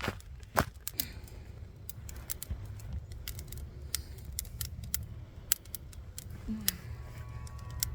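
A string of irregular sharp clicks and snaps over a low, steady rumble.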